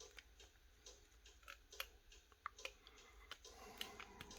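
Near silence with faint, scattered small clicks and taps, a few a second, from handling the phone at the repair bench, over a low steady hum.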